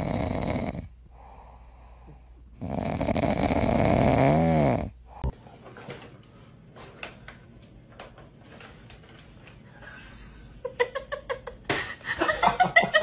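A dog making two loud, rough, rasping noises, the second with a pitch that dips and rises again. Then come scattered clicks and a rapid plastic clicking and rattling from a cat's ball-track toy, growing busier and louder near the end as a cat knocks it up onto its head.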